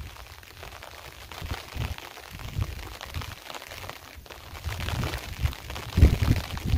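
Wind buffeting the microphone in irregular gusts, with a thin hiss over it, the gusts growing stronger about six seconds in.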